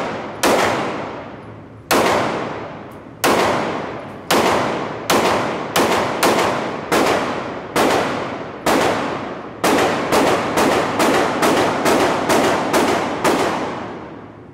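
Semi-automatic pistol fired about twenty times, each shot echoing and fading in the indoor range. The shots come a second or more apart at first, then quicken to two or three a second about ten seconds in.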